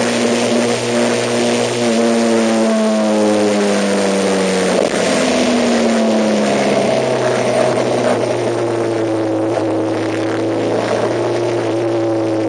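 A vehicle engine running under way over steady road and wind noise; its pitch sinks slowly, jumps back up about five seconds in, and sinks again.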